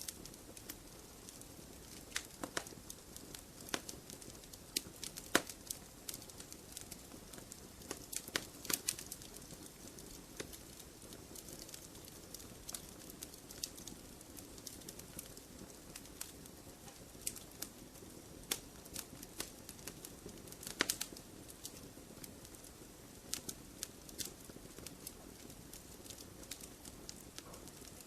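Campfire burning with irregular sharp crackles and pops over a soft low rush of flame.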